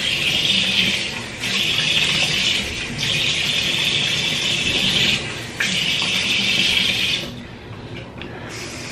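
Tap water running into a sink, the flow dipping briefly three times, then stopping about seven seconds in.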